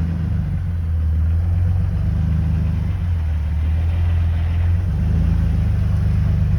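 Off-road vehicle's engine idling steadily close by, its note changing slightly about five seconds in.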